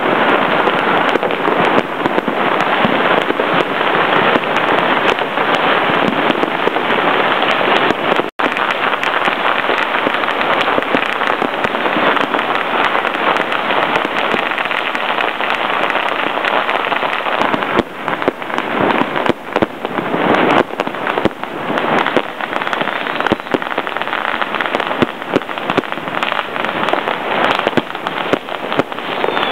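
Firecrackers and fireworks going off all around in a dense, unbroken crackle of countless small bangs. From about eighteen seconds in, the crackle thins into more separate, louder bangs.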